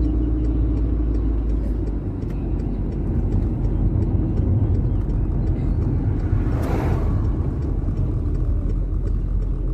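Steady low rumble of a moving vehicle, with a brief rushing swell about seven seconds in.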